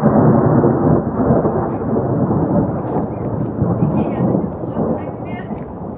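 Thunder: a loud rolling rumble that breaks in suddenly and slowly fades.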